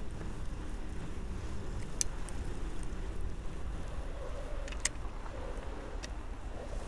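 Outleap Hercules fat bike rolling over packed snow: a steady low rumble, with three sharp clicks along the way.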